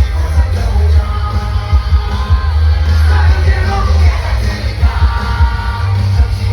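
Live K-pop concert music over a festival PA: a heavy, booming bass beat with a male lead vocal singing over it, with yells from the crowd.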